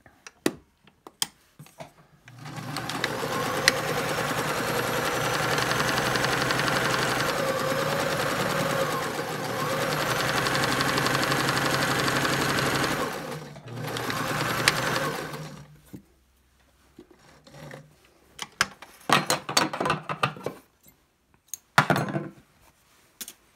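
Domestic electric sewing machine stitching a seam, running steadily for about eleven seconds, pausing for a moment, then running again for about two seconds. Near the end come a few short clicks and snips as scissors cut the thread.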